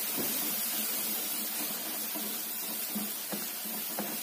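Onion-tomato masala frying in oil in a metal kadhai, a steady sizzle, while a wooden spoon stirs it with a few soft scrapes.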